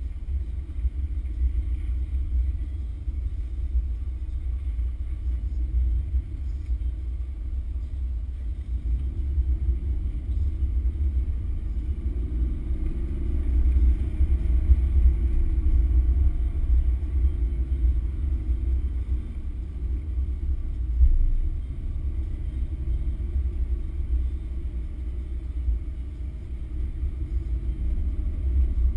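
Porsche 911 being driven, heard from inside the cabin: a steady low engine and road rumble that swells a little around the middle.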